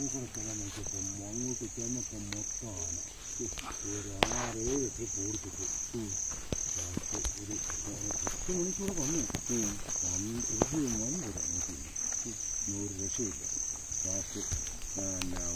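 An insect in the forest chirping steadily in high-pitched pulses, about two a second, with a few sharp snaps and a low murmur of voices underneath.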